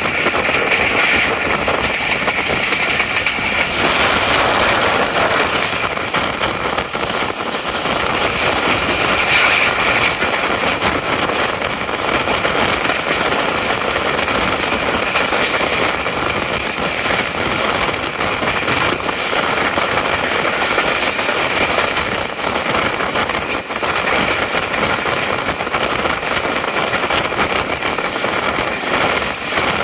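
Steady mechanical noise of a passenger express train heard from on board, with a few faint steady tones over it and no distinct knocks or horn.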